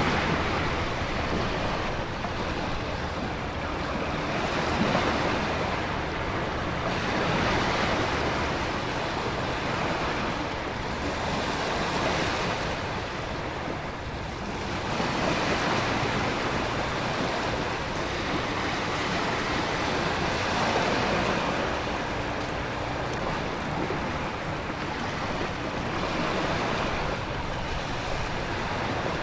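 Storm ambience: a dense, continuous rush of heavy rain, wind and crashing ocean surf, swelling and easing every few seconds as waves break.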